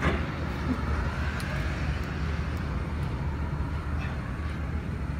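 Steady low outdoor rumble of background noise, with a couple of faint clicks.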